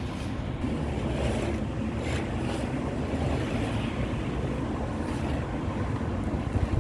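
Road-repair machinery working on a pothole repair, a steady loud rumbling mechanical noise with a few brief higher hisses on top.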